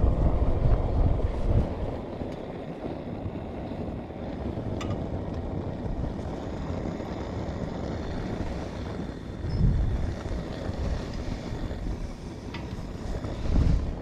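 Low rumbling wind noise on the microphone, with stronger gusts near the start, about ten seconds in, and just before the end, and a few faint clicks.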